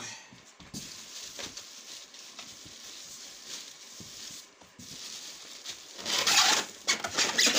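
Cardboard carton and plastic wrapping rustling and scraping as a plastic-wrapped sewing machine head is handled and lifted out of its box, with a louder burst of scraping and crinkling about six seconds in.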